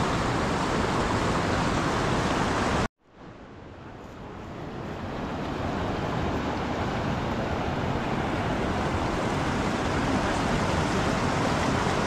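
Fast mountain river rushing over boulders, a steady wash of water noise. About three seconds in it cuts out abruptly and fades back in over the next few seconds.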